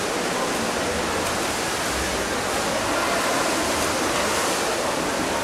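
Steady rushing water noise from a swimming pool during an underwater hockey game.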